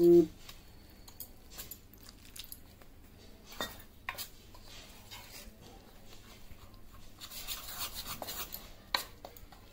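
Metal spoon stirring and scraping gram flour batter in a stainless steel bowl, with scattered sharp clinks of the spoon against the bowl; water is being worked into the dry flour. The scraping grows denser for a second or so near the end.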